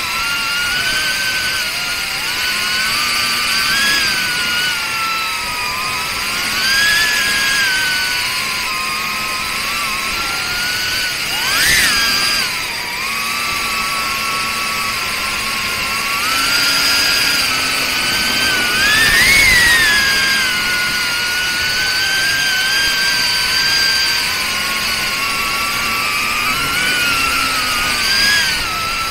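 Small ducted FPV drone (BetaFPV Pavo30 cinewhoop) with 3800 KV brushless motors whining as it flies, the pitch rising and falling with throttle, with sharp throttle punches about twelve seconds in and again near twenty seconds.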